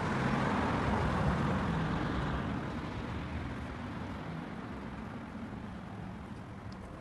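Road traffic noise: a vehicle passing, loudest about a second in, then easing to a steady traffic hum.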